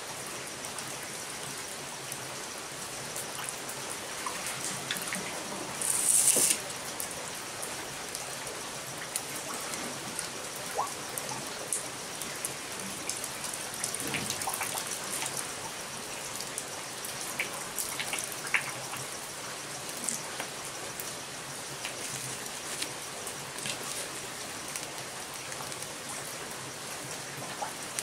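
Rain falling steadily, with scattered small clicks and ticks and a brief louder hiss about six seconds in.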